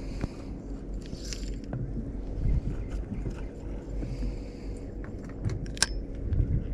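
Handling noise from gloved hands on a spinning rod and reel: scraping and scattered clicks, with one sharp click near the end, over a low steady hum and wind rumble.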